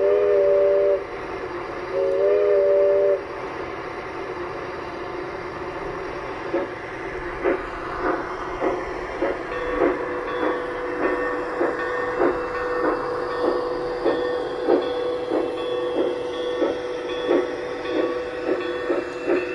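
Garden-scale model steam locomotive's sound unit giving two long whistle blasts, then, from about six seconds in, a steady chuffing at about two beats a second as the train runs past, with a steady tone joining under the chuffs a few seconds later.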